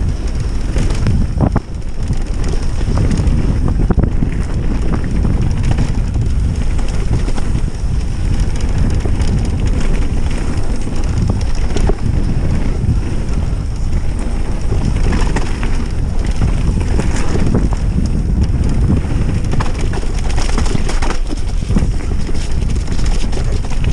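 Wind buffeting the microphone of a mountain biker's camera on a descent: a steady loud low rumble. Frequent short knocks and rattles from the mountain bike run through it as it rides over the rough trail.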